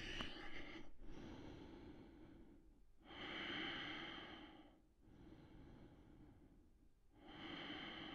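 Faint, slow, deep human breathing, each breath lasting about two seconds, the two loudest breaths coming about three and seven seconds in.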